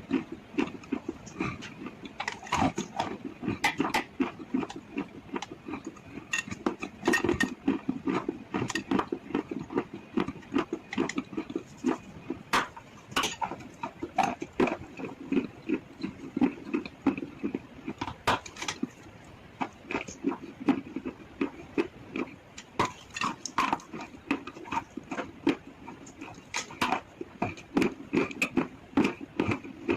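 Close-miked biting and chewing of brittle chalk-like sticks: irregular sharp crunches, one to three a second, over a steady, rhythmic chewing sound.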